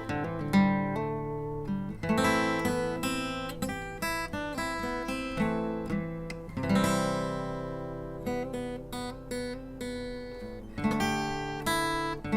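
Acoustic guitar music, plucked and strummed notes ringing and decaying.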